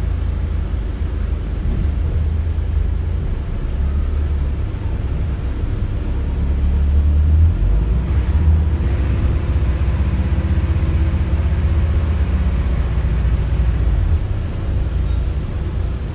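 Cabin noise inside an Alexander Dennis Enviro400H double-decker bus with BAE Systems hybrid drive under way: a steady low rumble from the drivetrain and road, a little louder about halfway through.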